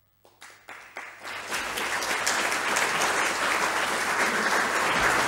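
Audience applause: a few scattered claps that build within about a second and a half into steady applause.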